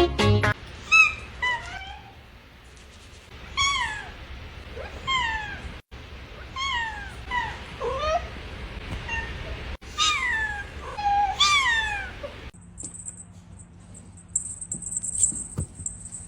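A cat meowing over and over, about ten meows, most of them falling in pitch. The meowing stops about three-quarters of the way through, leaving only a faint hiss.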